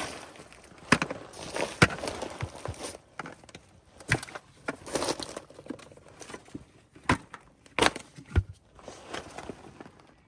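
Rustling and crunching handling noise broken by several sharp knocks and clicks, irregular and stop-start.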